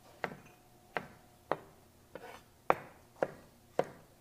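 Chef's knife cutting sweet bell pepper on a plastic cutting board: about half a dozen sharp knocks of the blade on the board, roughly two a second.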